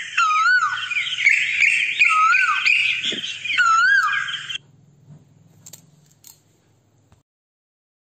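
Asian koel calling: a wavering whistled note, rising then falling, repeated three times about a second and a half apart over a dense higher-pitched background. It cuts off abruptly about four and a half seconds in.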